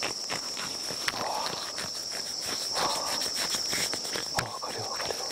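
Insects trilling steadily on one high tone, with scattered clicks and brief rustles in the brush over it.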